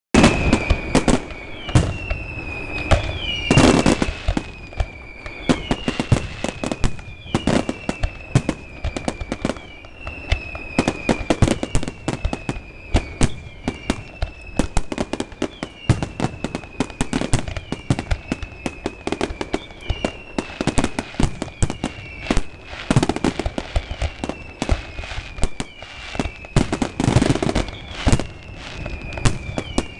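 The finale of an aerial fireworks display: a dense, steady run of sharp shell bursts and bangs, with a whistle that slides down in pitch and repeats about every second and a half. The loudest bangs come in the first four seconds.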